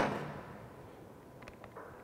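A sharp metallic clank at the start that rings away over about half a second, followed by a few faint light clicks: pipe fittings and tools being handled on a metal-framed workbench.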